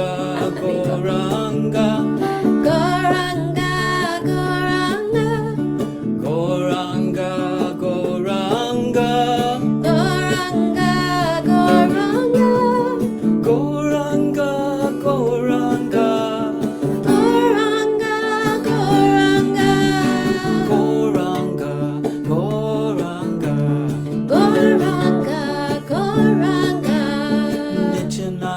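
Kirtan devotional music without words: a steady low drone runs underneath while a gliding melody line plays over it.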